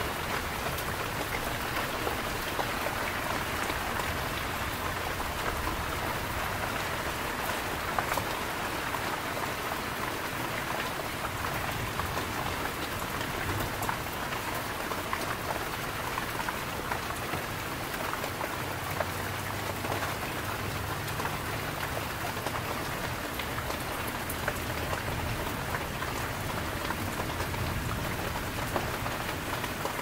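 Heavy rain falling steadily during a thunderstorm, with scattered sharp taps of drops striking nearby surfaces.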